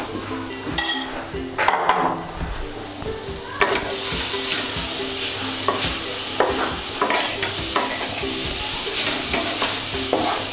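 Wooden spatula stirring and scraping grated coconut and sugar around a hot kadai, cooking them down into a sweet coconut filling. A few knocks come in the first few seconds, then a steady sizzle sets in about four seconds in under the repeated scraping strokes.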